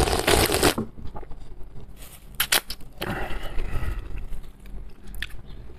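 Close-miked eating of instant noodles: a loud slurp in the first second, then chewing, with a few sharp clicks about two and a half seconds in.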